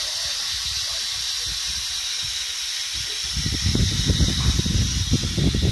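Steam hissing steadily from a BR Standard Class 9F steam locomotive. About three seconds in, an irregular low rumble joins it.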